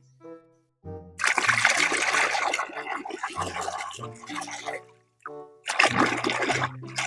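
Water rushing over a toy as it is rinsed clean, in two long spells with a short break between, over light background music.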